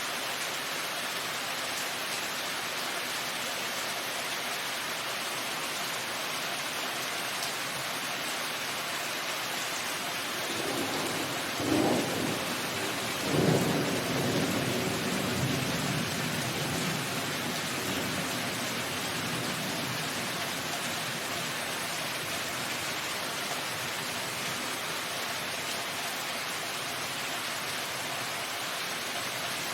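Steady rain with a thunderclap about halfway through: two sharp cracks in quick succession, then a low rumble that fades away over several seconds.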